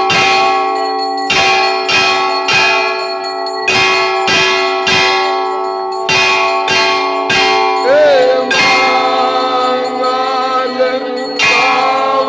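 Temple bells ringing through an aarti: a dense, sustained ringing struck over and over, about twice a second. About eight seconds in the strikes pause for a few seconds while a long, wavering held tone, sliding up at its start, sounds over the ringing; the strikes then start again near the end.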